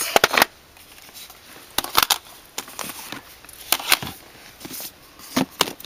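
Makeup palettes and compacts being handled among plastic storage drawers: a quick cluster of sharp clicks and knocks at the start, then single clicks and taps every second or so.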